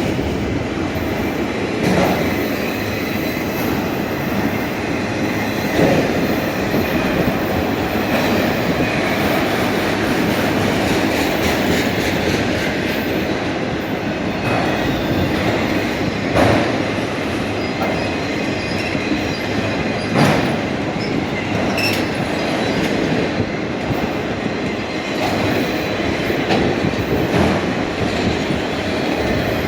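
Union Pacific freight train's cars rolling past: a steady rumble of steel wheels on rail, broken by sharp clanks and knocks every few seconds.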